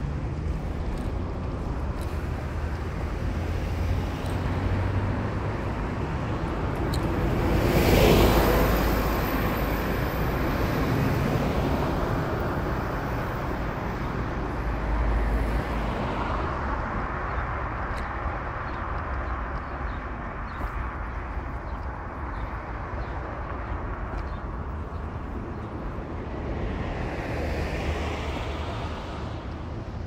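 Road traffic noise, steady and rumbling, with wind buffeting the microphone; one vehicle passes loudly, peaking about eight seconds in.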